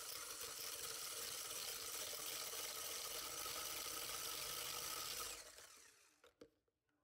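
Electric hand blender with a whisk attachment whipping cream and icing sugar in a plastic beaker: a steady whirring and swishing that stops about five and a half seconds in, once the cream has whipped firm.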